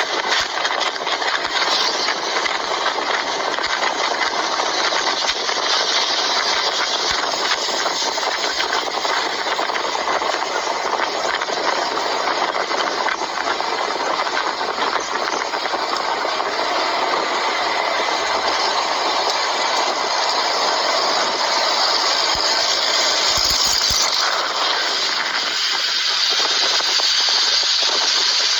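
Engine running steadily with a wide, even hiss over it, run with no water in its radiator to test an oil additive.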